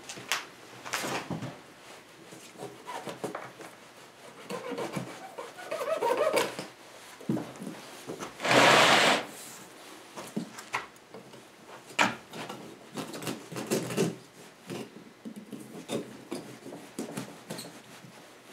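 Knife cutting through the cord strings still joining the two sawn halves of a 1920s tire, with rubber rubbing and scraping as the halves are worked apart. A louder rasping rush comes about nine seconds in.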